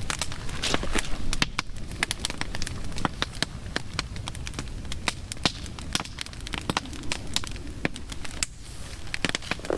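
Open fire crackling, with many irregular sharp pops and snaps over a low steady rumble.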